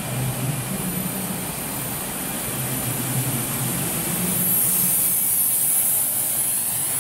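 Miniature gas turbine of an indoor RC model jet whining and hissing in flight. It grows louder as the jet passes close about two thirds of the way in, over a steady low hum from the hall.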